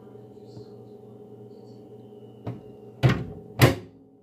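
A steady low hum, with a light knock about two and a half seconds in, then two louder dull knocks about half a second apart.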